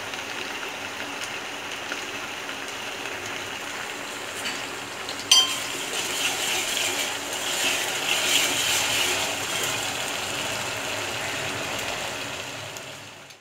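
Onions, ginger-garlic paste and green chillies sizzling in hot oil in an aluminium pot while a steel spoon stirs them, with one sharp metallic clink about five seconds in. The sizzle fades out near the end.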